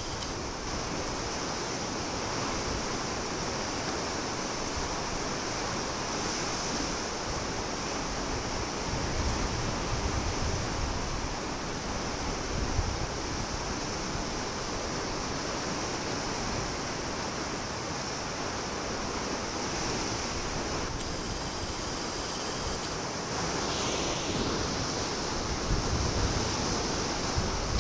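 Steady wash of sea surf against a rocky coast, with wind gusting on the microphone in uneven low rumbles now and then.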